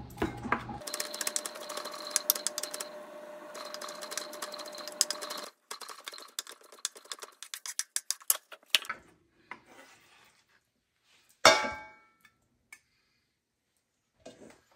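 Large kitchen knife rapidly chopping raw shrimp on a wooden cutting board: many quick taps at first, then slower separate strokes that die away. One louder knock with a short ring comes about three-quarters of the way in.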